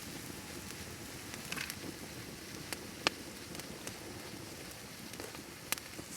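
Bonfire burning with a steady crackle and hiss, and a few sharp pops: the loudest about three seconds in, another near the end.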